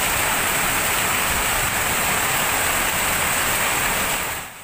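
Steady rushing of muddy flash-flood water surging in a torrent. It drops away sharply near the end.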